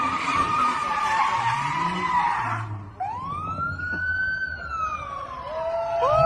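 A high, noisy screech that cuts off sharply about three seconds in, followed by a siren wailing: it rises, slowly falls, then breaks into quick up-and-down yelps near the end.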